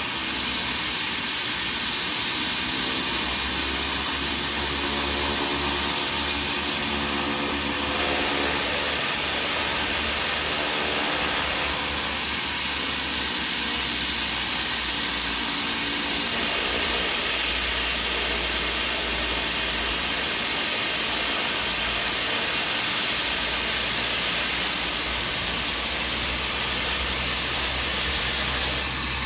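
Small plane's propeller engines running steadily, a loud rushing noise with tones that slowly slide up and down in pitch.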